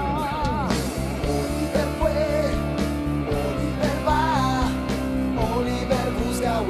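Rock band playing: drums, bass and electric guitars, with a lead melody that wavers in pitch with vibrato over the band.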